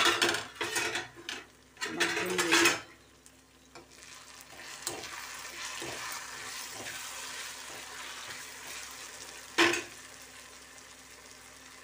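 A metal spoon clatters and scrapes as it stirs drumstick-and-tomato curry in a black kadai. The curry sizzles steadily in the oil, and a single sharp knock comes near the end.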